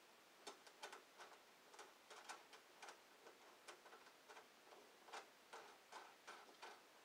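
Faint irregular clicks, about two or three a second, as the last screw is turned by hand into the plastic skate ramp.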